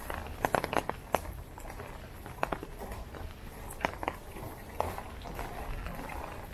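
Rainy street ambience: a steady hiss with irregular sharp taps on wet pavement, a quick cluster of them in the first second, then a few single taps.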